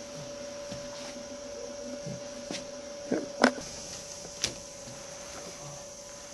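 Steady hum with a handful of short knocks and clicks about halfway through, the loudest a pair just past three seconds in, as the small wheeled robot is handled and set down on the maze floor.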